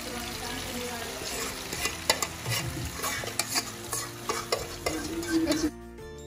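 Paneer and onion masala sizzling in a hot nonstick kadai, with frequent short scrapes and knocks of stirring against the pan. The sizzle cuts off abruptly near the end.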